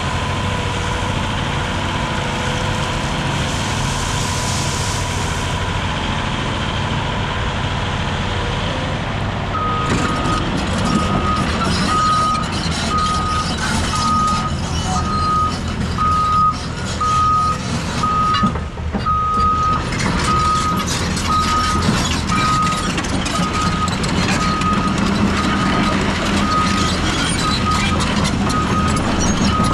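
Caterpillar 349E excavator's diesel engine running steadily under hydraulic work. About ten seconds in, the travel alarm starts beeping evenly, about once a second, over the engine and a rattling clatter as the machine moves on its tracks.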